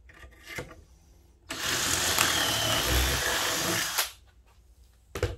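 Power drill with a 5.5 mm bit running under load for about two and a half seconds, boring into timber through the pre-drilled holes, then stopping suddenly. A short sharp click comes near the end.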